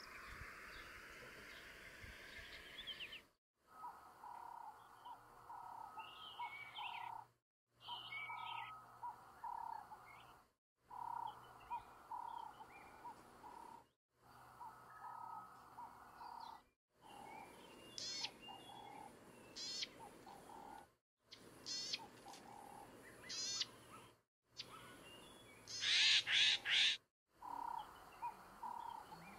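Garden birds calling and singing: a low note repeated two or three times a second through most of it, short high trills, and a loud burst of song near the end. A faint slow rising whine runs through the first few seconds, and the sound cuts out briefly about every three seconds.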